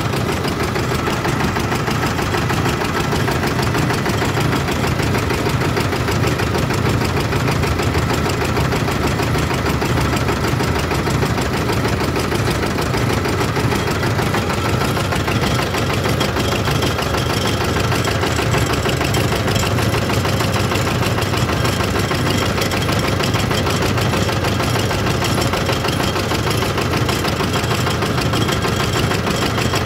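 Motor-driven sewaiyan (vermicelli) extruding machine running steadily under load as dough is fed in and strands are pressed out, with a fast, even mechanical beat.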